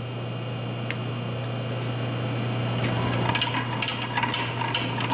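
Metal-on-metal clinking and light tapping, picking up about three seconds in, as a heated gear coupling is knocked onto a splined shaft. A steady low shop hum runs underneath.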